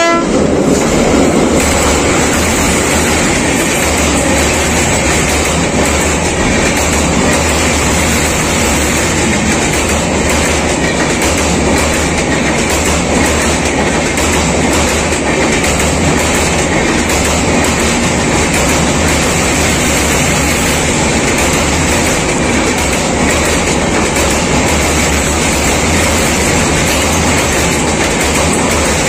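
Passenger train coaches passing close by on a steel girder bridge: a loud, steady rumble of wheels on the rails with a regular clatter of the wheel sets.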